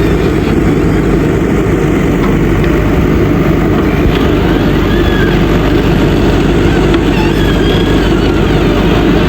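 JCB backhoe loader's diesel engine running steadily, a constant low drone.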